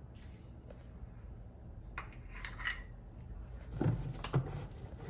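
Kitchenware being handled beside a pan on the stove: a sharp click about two seconds in, then a few duller knocks and clinks around four seconds in.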